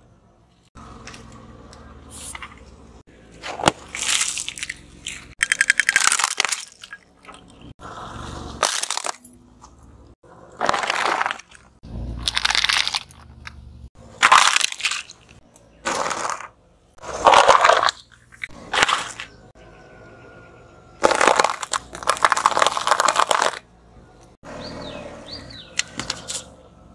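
Car tyre crushing plastic objects such as bottles and toys: a string of short, loud cracks and crunches, one every second or two, with short gaps between them.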